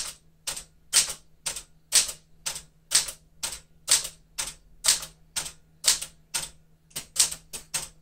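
1975 Smith-Corona Galaxie Twelve manual typewriter being typed on, the number keys struck one by one about two to three times a second, each typebar hitting the platen with a sharp clack. A quicker run of strikes comes near the end.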